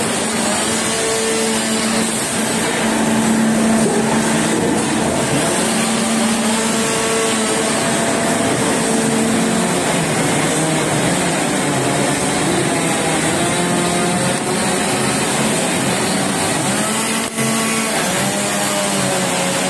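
Rotary veneer peeling lathe running and peeling a log into veneer: a loud, steady machine din with a motor hum that comes and goes and shifts slightly in pitch.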